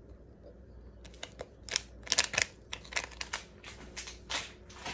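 Stirring a drink mix in a cup: a run of quick, uneven clicks and scrapes that starts about a second in.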